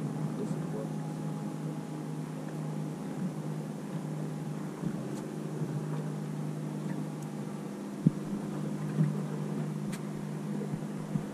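Boat engine idling with a steady low hum, with two knocks late on.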